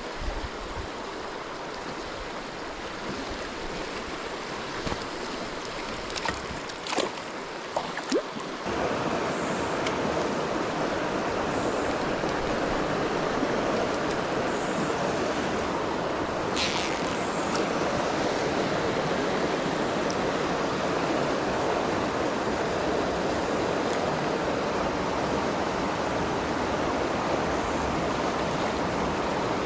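Rushing river water, a steady hiss that gets louder about a third of the way in, with a few light clicks before the change.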